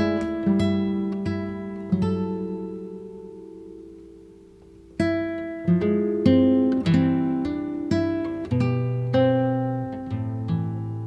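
Background music of slow plucked acoustic guitar: single notes and chords that ring and fade, left to die away for a few seconds midway before a new run of notes.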